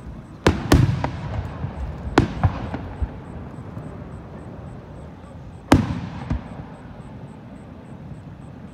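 Aerial firework shells bursting: a cluster of sharp bangs in the first two and a half seconds, then one loud bang a little before six seconds in with a smaller one just after, each trailing off in a rumble.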